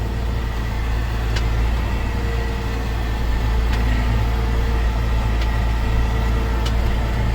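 A vehicle engine running steadily at an even low hum, with a few faint ticks over it.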